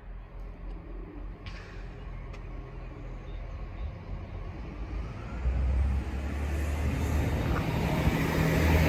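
Diesel train approaching along the platform, its engine hum and wheel and rail noise growing steadily louder, stepping up about five and a half seconds in.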